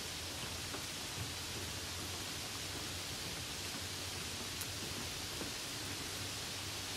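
Steady light rain, an even hiss with a few faint ticks.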